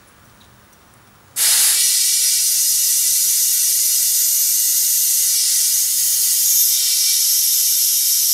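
Compressed air hissing steadily from an air hose into a lawn mower tire, starting suddenly about a second and a half in. The air escapes past a tire bead that will not seal on the rim, so the tire does not inflate.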